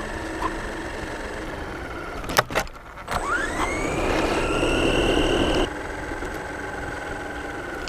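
Radio-controlled model car's motor whining steadily. A couple of sharp knocks come about two and a half seconds in. The motor then speeds up with a smoothly rising whine that cuts off suddenly about two seconds later.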